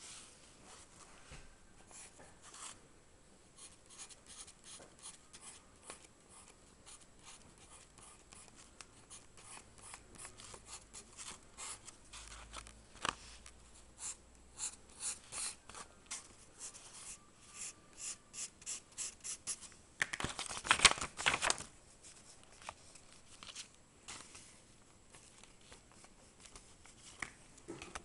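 Pencil scratching on drawing paper in short strokes, which come faster and closer together in the middle, with a dense burst of quick scribbling about three quarters of the way through.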